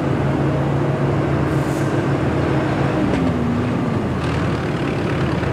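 Forklift running as it drives across a factory floor, a steady motor hum whose pitch dips and comes back up about three seconds in.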